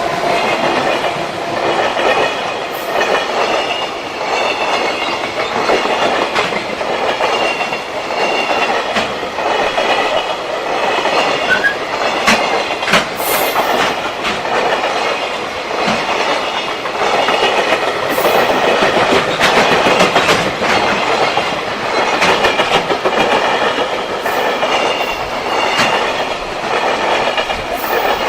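A JR Freight freight train rolling past close by, its wagons' wheels clattering over the rail joints in a running clickety-clack, with a faint metallic wheel squeal.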